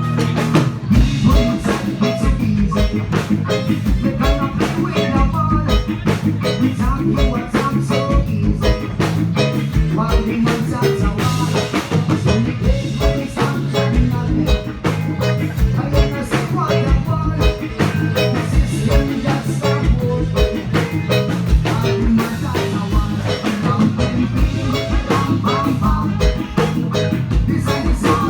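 Instrumental music with a steady drum-kit beat and bright pitched percussion notes over a low bass line.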